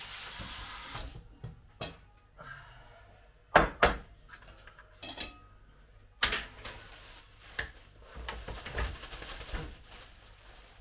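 Dishes and pots being handled in a kitchen sink: a series of clanks and knocks, the loudest two in quick succession a little after three seconds in, then lighter clattering. A steady hiss stops about a second in.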